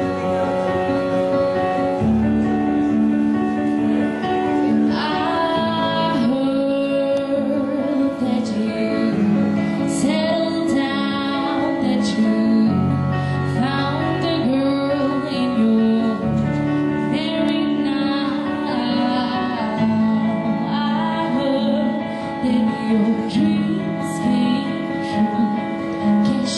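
A young woman singing a slow pop ballad live through a PA, with amplified electronic keyboard accompaniment. The keyboard plays sustained chords alone at first, and the voice comes in about five seconds in.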